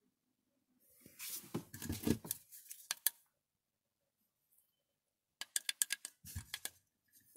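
Handling noise: two short spells of clicking and scraping, one about a second in and another after five seconds, with a dull knock near the end of the second spell.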